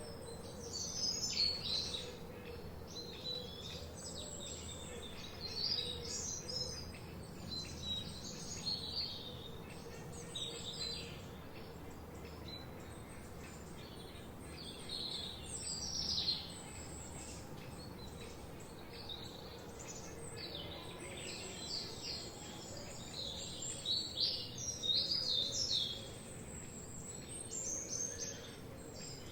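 Several songbirds singing and chirping at once, with rapid high trills and short calls coming thick and fast, over a steady low background hiss.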